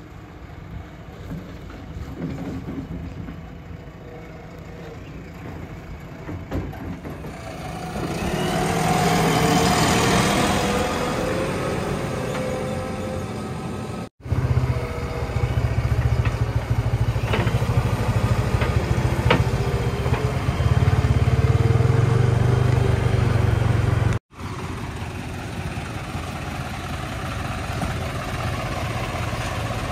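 JCB 3DX Plus backhoe loader's diesel engine running as the machine drives along, growing louder about eight seconds in as it comes close, then a deep steady drone. The sound breaks off abruptly twice, and near the end it is a softer steady diesel engine running at idle.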